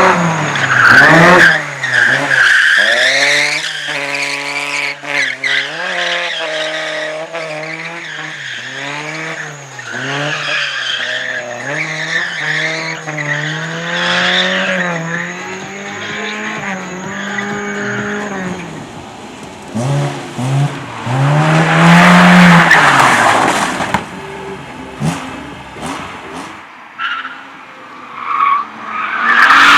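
A car being driven hard while drifting: its engine revs up and down repeatedly and the tyres squeal as it slides, loudest about three-quarters of the way through.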